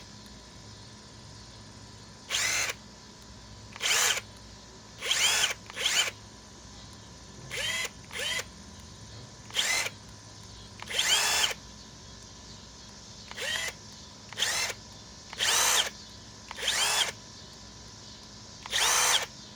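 Harbor Freight Hercules cordless impact driver run in about a dozen short trigger blips, each a brief whir that rises in pitch as the motor spins up. This is its variable-speed feather mode being shown off.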